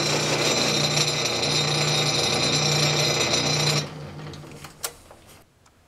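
South Bend Model A lathe running steadily with a fixed whine, then switched off about four seconds in and coasting down, with a single click about a second later.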